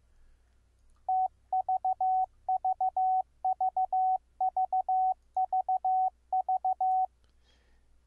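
Clean Morse code tone from the SoftCW software code practice oscillator, keyed through the serial port by an audio-derived keying switch so that it regenerates an incoming CW signal. A single steady pitch with crisp on and off edges sends the letter V (three dits and a dah) six times over, starting about a second in and stopping about a second before the end.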